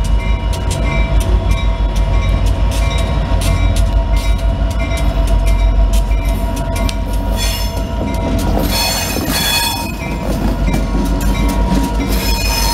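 CSX freight train passing at close range, its diesel locomotive rumbling, then hopper cars rolling by with the wheels clicking over the rails. Wheel squeal rises about two-thirds of the way in and again near the end.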